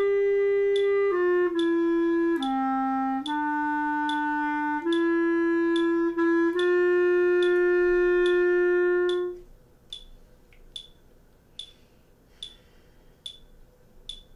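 Clarinet playing a slow melody in held notes, closing on a long note that stops about nine seconds in. Over it a metronome clicks at 72 beats per minute, and it goes on ticking alone after the playing ends.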